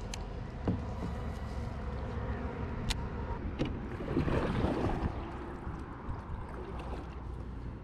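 Kayak paddle strokes: the blade dipping and swishing through the water beside a plastic fishing kayak, the splashing swelling about halfway through. A few sharp clicks come in the first half.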